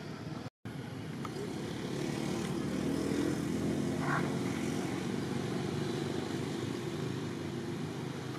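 An engine drones steadily, growing louder a couple of seconds in and easing off toward the end. The sound cuts out for an instant just after the start.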